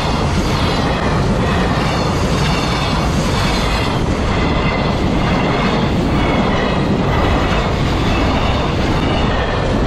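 Freight train hauled by an EF210 electric locomotive passing close by, its wheels running over the rails in a loud, steady stream of noise.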